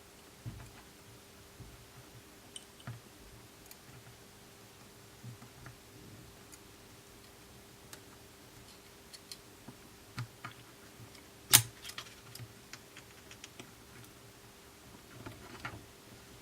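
Sparse light clicks and taps of small phone parts and tools being handled during an iPhone 6s repair, with one sharp click about two-thirds of the way through; a faint steady hum underneath.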